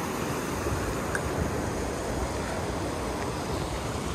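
Steady rush of flowing water: an even, unbroken noise with no distinct events.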